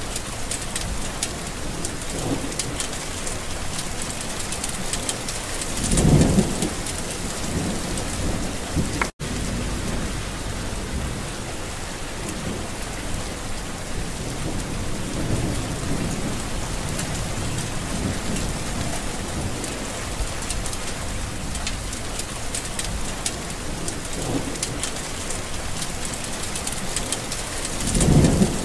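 Steady, heavy rain in a storm, with a louder low rumble about six seconds in and another near the end. The sound cuts out for an instant at about nine seconds.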